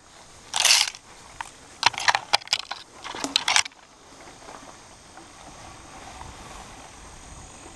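Mountain bike pushing through overgrown brush. A loud swish of leaves comes about half a second in, followed by a run of sharp crackles and snaps from twigs and branches for about two seconds, then a steady, quieter rolling hiss.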